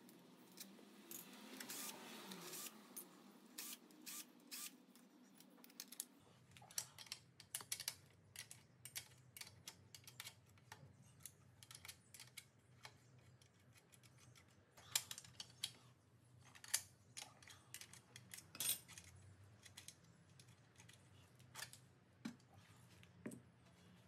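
Faint, scattered clicks, taps and scrapes of hand tools being worked on an electric scooter's front hub-motor wheel: a utility knife at the fork and an open-end wrench on the axle nut, metal against metal.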